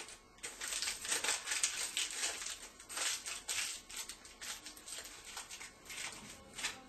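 Aluminium foil crinkling as it is wrapped and pressed around a foil sculpture by hand: an irregular run of crackles, louder in the first half.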